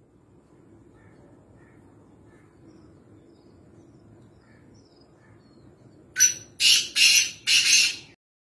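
Black francolin (kala teetar) calling: about six seconds in, four loud, harsh, grating notes come in quick succession. Before them there is only a faint background with a few soft distant chirps.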